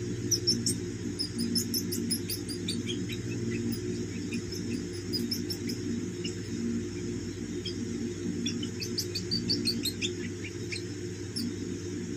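Baby Indian palm squirrels making short, high-pitched chirps in quick clusters while feeding from a spoon, over a steady low hum.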